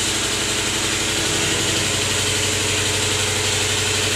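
A steady, low mechanical drone with a constant hiss, unchanging throughout, of the kind a running motor or engine makes.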